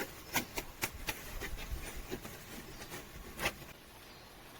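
A few light clicks and knocks of engine belt-drive pulleys and parts being handled and turned by hand with the belt off, mostly in the first second and once more about three and a half seconds in.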